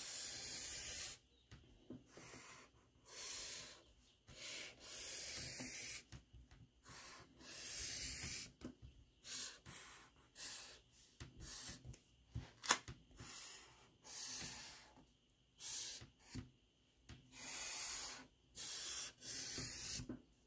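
Sharpie permanent marker drawing lines on paper: a series of short scratchy strokes, each lasting about half a second to a second, with pauses between them. A single sharp click comes about two-thirds of the way through.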